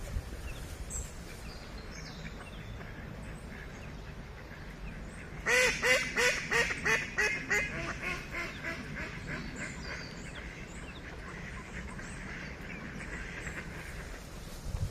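A mallard hen giving her falling quack series: a rapid run of about four quacks a second, loudest at the start and fading away over some three seconds, beginning about halfway in. Small birds chirp faintly.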